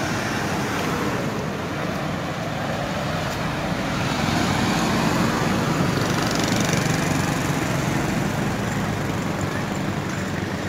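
Steady road-traffic noise with a low engine hum underneath, swelling slightly about four seconds in.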